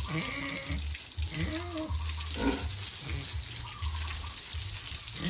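Pigs grunting and squealing in short arched calls, over a steady noise of running water.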